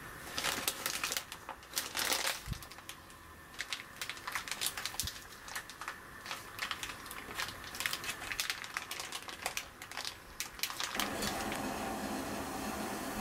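Plastic zipper storage bag (Ziploc) crinkling and crackling irregularly as hands press the air out around the beef inside and seal it. About eleven seconds in the crinkling stops and a steady rushing noise takes over.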